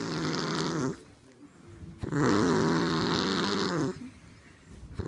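Loud, drawn-out snoring with a wavering pitch. One snore ends about a second in, the next runs from about two seconds to four seconds in, and a third begins at the very end, with quieter breathing gaps between them.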